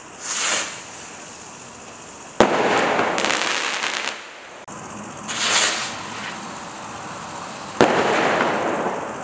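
Two Galactica flash rockets fired one after the other. Each goes up with a short whooshing hiss, then about two seconds later bursts with a sharp bang and a second and a half of crackle.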